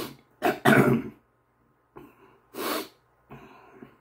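A man clearing his throat and coughing in a run of short bursts, the loudest about half a second to a second in. His throat is burning from eating chocolate Bhutlah superhot peppers.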